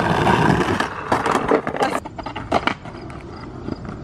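Skateboard wheels rolling over rough concrete on a sloped bank, loudest in the first second. A few sharp clicks and knocks of the board come between about one and two and a half seconds in, then the rolling goes on more quietly.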